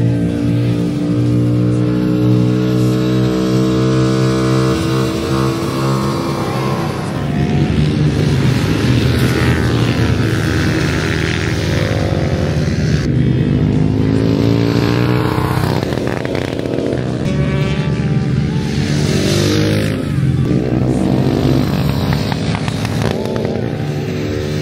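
Motorcycle engines revving up and down through gear changes as several bikes pass one after another.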